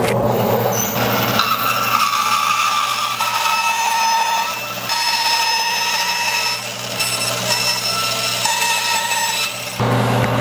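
Rikon 14-inch bandsaw running and cutting lengthwise through a piece of mesquite, a steady motor hum under the whine of the blade in the wood. The cutting whine starts about a second and a half in and drops away near the end as the blade runs free again.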